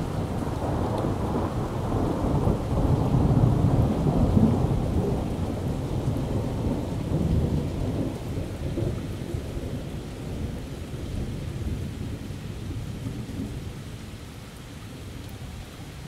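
Steady rain with a long roll of thunder beneath it, the rumble loudest about three to four seconds in and then slowly dying away.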